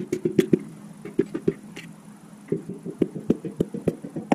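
Piston being tapped down through a ring compressor into a cylinder bore of a 350 short block with the end of a hammer handle: a run of short knocks, a few a second and unevenly spaced, pausing for about a second midway, with the sharpest knock near the end.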